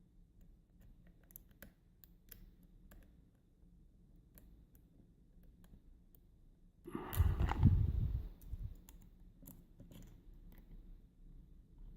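Thin lock pick working the pins inside a Union rim cylinder: faint, scattered small clicks of the pick against pins and warding. About seven seconds in there is a louder bump and rustle of handling.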